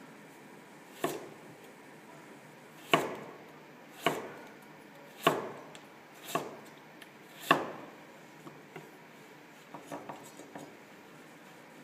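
Chef's knife chopping through carrot onto a wooden cutting board: six separate strokes about a second apart, then a few light taps near the end.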